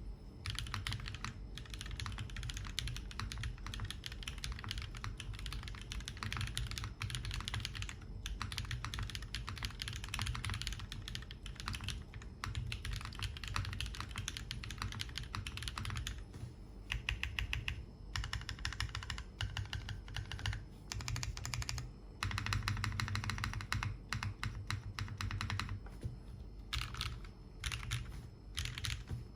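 Typing on a Vertex Angle custom mechanical keyboard with an aluminium plate, SOTC switches, SML stabilizers and Cherry-profile ABS keycaps, built without foam: rapid, continuous keystrokes with a few brief pauses.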